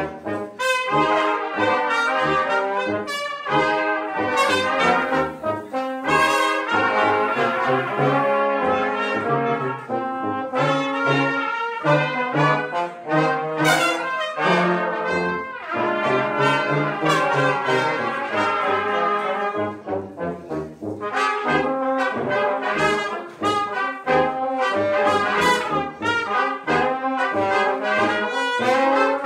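A live brass quintet of trumpets, trombone, tuba and French horn playing a piece together, the tuba keeping short bass notes in a steady pulse under the chords and melody.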